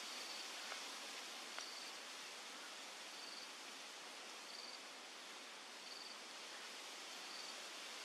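Faint outdoor ambience: a steady hiss with a short, high chirp repeating evenly, six times, and a couple of faint clicks near the start.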